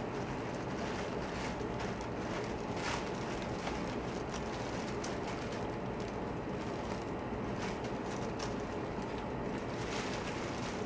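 Steady low rumbling background noise, with a few faint, scattered rustles and taps from kittens scrabbling on tissue paper and cardboard.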